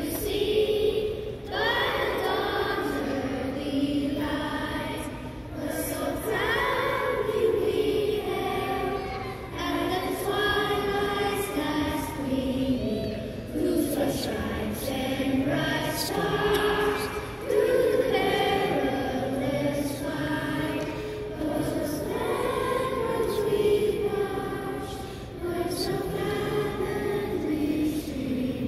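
Elementary-school children's choir singing in long sustained phrases, heard across a large arena.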